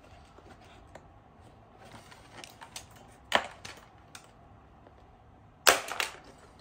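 Plastic parts of a car headlight housing clicking and snapping as they are pried loose by hand: scattered light ticks, a sharp click about halfway through, and a loud snap near the end.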